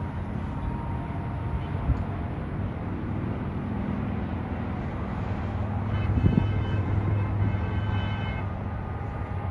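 Steady rumble of distant road traffic crossing a river bridge, with a vehicle horn sounding for about two seconds past the middle.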